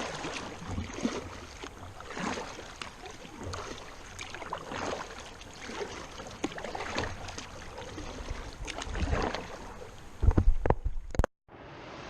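Kayak paddle strokes splashing, with river water rushing around the hull in a steady wash. Near the end a loud low rumble buffets the microphone for about a second, then the sound cuts off abruptly.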